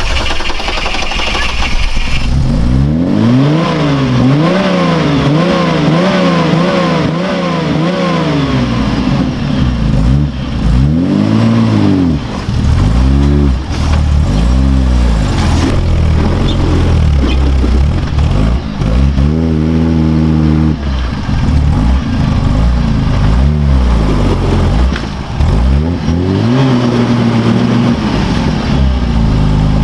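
Off-road truck engine revved up and down again and again. For several seconds its pitch swings in quick rises and falls, then it climbs and drops in longer surges, settling briefly to a steadier note near the end.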